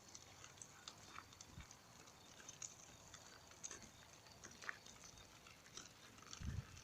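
Near silence: faint outdoor ambience with scattered faint ticks, and a low rumble starting near the end.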